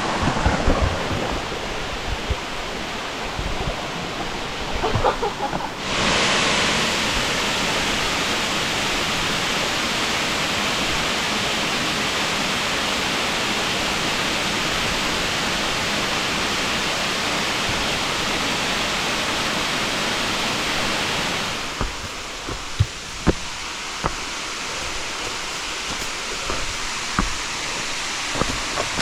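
Waterfall rushing: a steady hiss of falling water, much louder from about six seconds in until about twenty-two seconds, with fainter water noise and a few scattered light knocks before and after.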